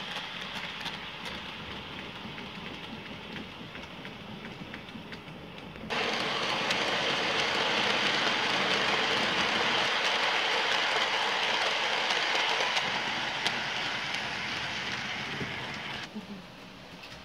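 Model train of Electrotren cargo vans rolling along the layout's track: a steady rolling hiss with faint clicks. It gets suddenly louder about six seconds in and falls away near the end as the train goes into a tunnel.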